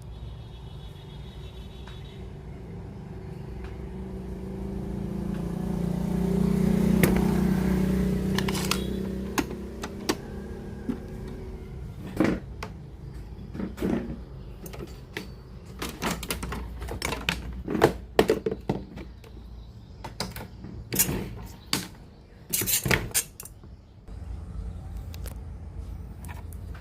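Work on a radio cassette player: a low hum swells and fades over a few seconds, then comes a long irregular run of sharp clicks and knocks, then a steady low hum near the end.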